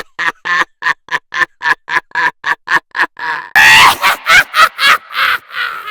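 Witch's cackling laugh: a rapid string of high, pitched 'heh-heh' pulses, about five a second. About halfway through it breaks into a louder, harsher cackle.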